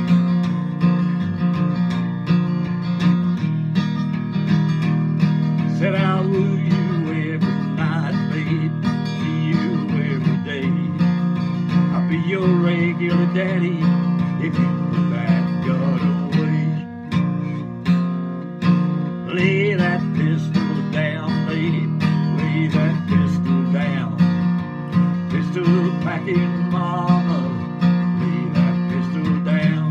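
Acoustic guitar strummed steadily in a country rhythm, with a man's singing voice over it from about six seconds in, pausing briefly a little past the halfway mark before coming back.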